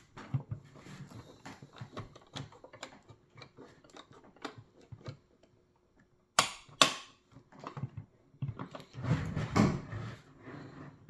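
Hands handling and fitting plastic puzzle-box pieces: small scattered clicks and knocks, two sharp knocks close together about six and a half seconds in, and denser rubbing and handling noise near the end.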